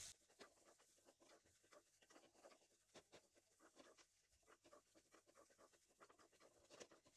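Near silence with faint, irregular scrapes of a wooden spatula stirring chicken, egg and chopped vegetables in a metal kadai.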